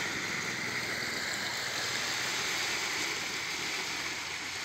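Seawater from incoming waves rushing and churning through a narrow concrete canal, a steady splashing hiss.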